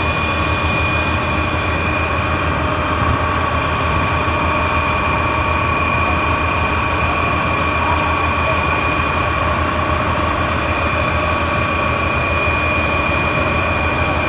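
Heavy engine running steadily under load, with a steady high whine over it: a fire pump feeding the water jets and hoses.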